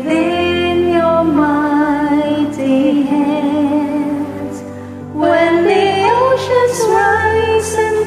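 Two women singing a slow worship ballad as a duet over a soft sustained accompaniment, the melody held in long notes with vibrato. One phrase fades out about four seconds in, and a louder one begins about a second later.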